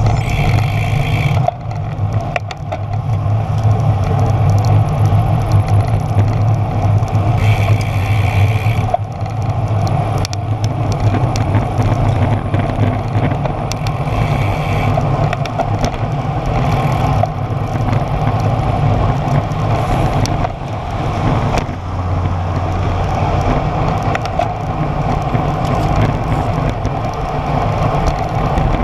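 Wind buffeting the microphone of a bike-mounted action camera, with road-bike tyres rolling on asphalt: a steady low rumble. Two short, higher-pitched bursts come near the start and about eight seconds in.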